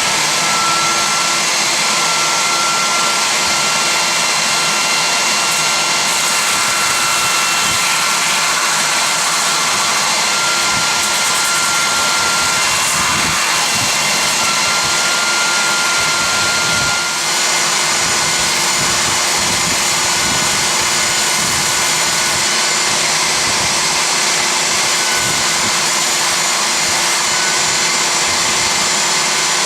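Porter-Cable 371 belt sander with a 60-grit belt running steadily together with a Festool dust extractor, the belt grinding end grain into a convex face on a wooden mallet head. Steady high whine and hiss, dipping briefly about halfway through.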